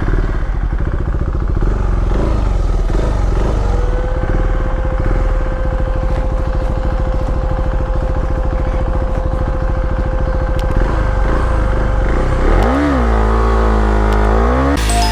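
KTM Duke 390's single-cylinder engine held at high revs during a burnout, the rear tyre spinning on the spot. The revs climb for the first few seconds, hold steady for about eight seconds, then fall and rise again near the end.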